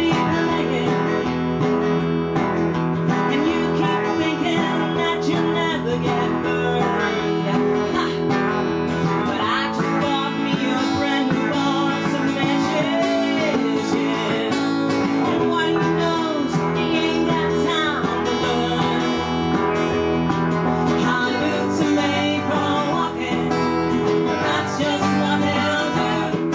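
Acoustic country band with no drums playing an instrumental passage: an acoustic guitar strumming under a bending melody line, with steady sustained low notes beneath.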